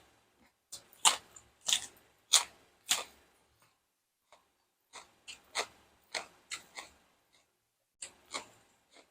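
Close-miked chewing of crunchy food: loud, crisp crunches coming in three runs of several bites each, with short pauses between.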